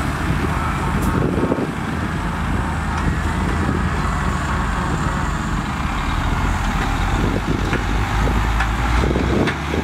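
Dump truck's diesel engine running steadily while its raised tipper body empties a load of sand, the sand sliding out of the open tailgate.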